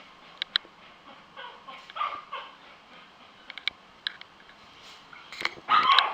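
Puppy yipping and whimpering: short, high cries scattered here and there, with a louder run of cries near the end.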